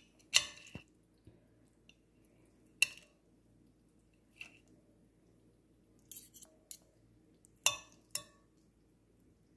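Eating sounds: several sharp clinks and taps of a utensil against a plate or bowl, spaced a second or more apart, with a few quieter ticks between.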